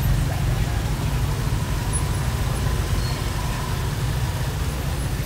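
Steady low rumble of street traffic with general outdoor market noise.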